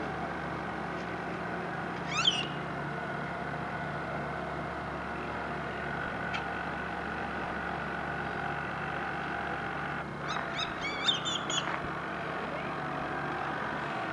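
Bird calls: a short sweeping call about two seconds in and a quick run of calls near the end, over a steady hum.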